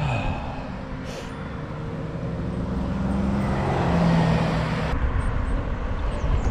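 Wind rushing over a bike-mounted action camera's microphone while riding on a road, with traffic noise and a motor vehicle's engine growing louder midway; the sound changes abruptly about five seconds in.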